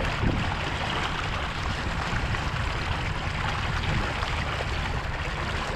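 Water rushing and trickling steadily along a sailboat's hull under sail, with wind rumbling on the microphone.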